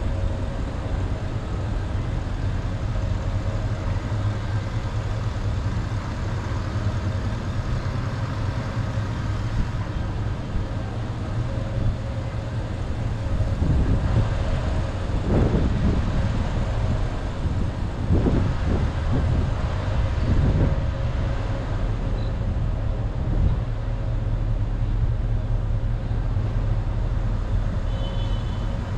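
Porsche Panamera Turbo's 4.8-litre V8 running on the road, with a steady low engine and road rumble. The engine swells louder several times about halfway through.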